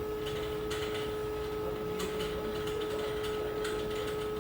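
Steady hum of running mechanical-room equipment, a constant tone over a low rushing background, with a few faint clicks.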